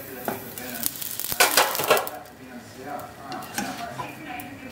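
A batter pancake sizzling in a nonstick frying pan, with scraping and small clicks from the pan's lid and a plastic spatula. The sound is louder for about half a second around a second and a half in.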